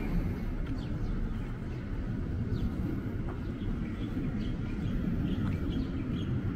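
Small birds chirping over and over in short, quick notes over a steady low rumble of street noise.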